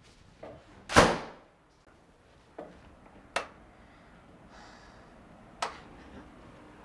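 A door slammed shut hard: one loud bang about a second in, with a short ringing tail in the small room. Then a few fainter sharp clicks, the last as the door's latch is worked and it opens again.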